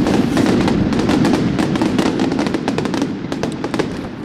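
Aerial firework shells bursting, a dense run of sharp pops and bangs over a rumble that thins out and gets a little quieter near the end.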